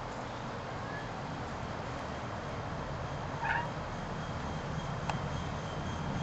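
A kitten meows once, briefly, about halfway through, over a steady background hiss.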